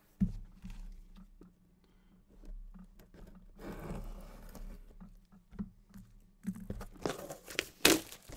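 A packaged jersey being pulled from a stack and unwrapped by hand. There is a knock just after the start, then crinkling and scraping of the packaging about halfway through. A run of clicks and knocks follows near the end, the loudest of them close to the end.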